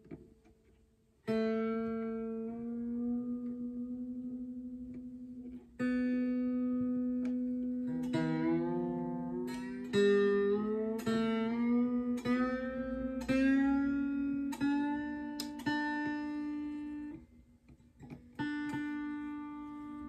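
Freshly fitted strings on an Epiphone Casino hollow-body guitar plucked again and again while a tuning peg is turned, bringing a new string up to pitch. Each note rings on and the pitch steps upward from pluck to pluck. A long-ringing first pluck comes about a second in, quicker plucks follow in the middle, and there is a short pause before one more pluck near the end.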